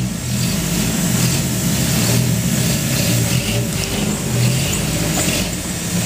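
Toyota pickup's engine running and revving unevenly as the truck crawls up a rocky, muddy trail.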